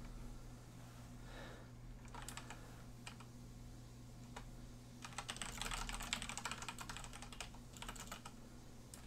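Typing on a computer keyboard: a few scattered keystrokes, then a quick run of typing about five seconds in that lasts a couple of seconds, with a few more keys near the end. A faint steady electrical hum runs underneath.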